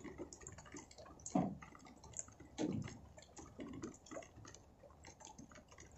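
Quiet, irregular dripping and ticking of rainwater, with a few faint low sounds about one and a half and nearly three seconds in.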